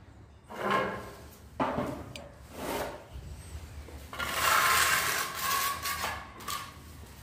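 Steel trowel scraping cement adhesive along ceramic floor tiles at the base of the wall. There are a few short scrapes, then one longer, louder scrape about four seconds in.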